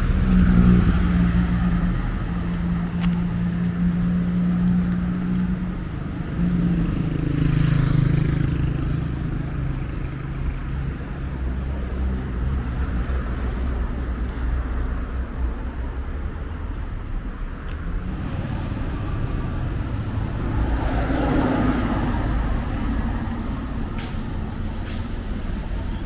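Street traffic: a motor vehicle's engine running close by with a steady low hum for the first several seconds, and vehicles passing, with swells about eight and twenty-one seconds in.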